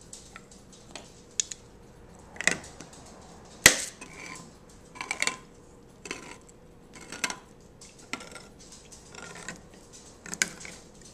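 Handheld manual can opener cranked around the lid of a steel can, with a short click or crunch at each turn, about one a second. The sharpest click comes a few seconds in.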